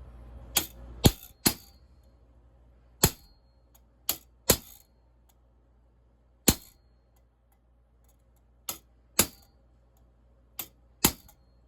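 Ball peen hammer striking a center punch set on the rivets of a chainsaw bar's replacement nose sprocket tip, to flare them. About eleven sharp metal-on-metal strikes come at uneven intervals, some in quick pairs, each ringing briefly.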